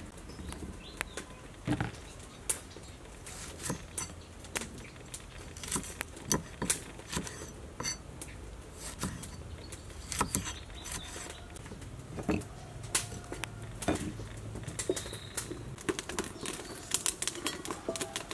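Food-preparation clatter: a knife knocking against a wooden chopping board while cutting limes, with many sharp, unevenly spaced clicks and taps.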